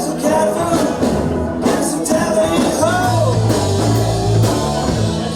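A live rock and roll band playing a song, with a singer's voice over a steady bass line.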